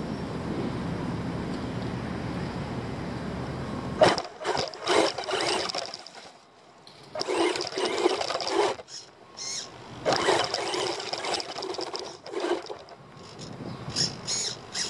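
RC car driving over dirt and gravel in short bursts of throttle, its motor and tyres on the ground heard from a camera mounted on the car. The bursts start about four seconds in, after a stretch of steady rushing noise, and stop and start several times.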